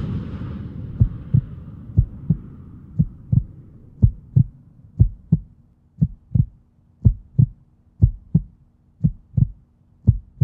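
Heartbeat sound effect: slow paired low thumps, lub-dub, about once a second, rising out of the fading tail of a whoosh. A faint steady low hum comes in about halfway.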